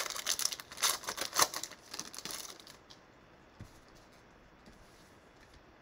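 Foil wrapper of a 2020 Bowman Mega trading-card pack being torn open and crinkled by hand, a quick run of crackles and rustles for the first three seconds or so.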